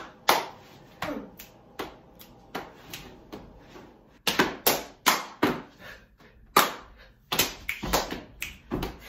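A series of sharp hand claps and slaps, irregularly spaced, about a dozen in all, getting louder about four seconds in.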